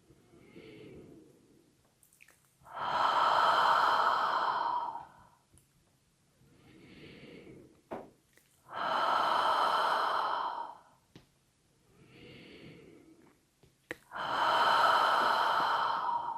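A person voicing the qigong heart healing sound: three long, breathy exhalations of about two and a half seconds each, with quieter in-breaths between them. A small mouth click comes just before each exhalation.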